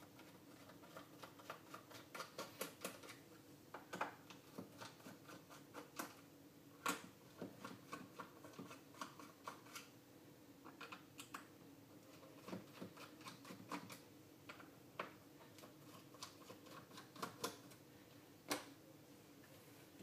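Small irregular clicks and scraping of a precision screwdriver turning screws out of the plastic case of a RigExpert AA-200 antenna analyzer, with two sharper clicks, one about 7 s in and one near the end. A faint steady hum sits underneath.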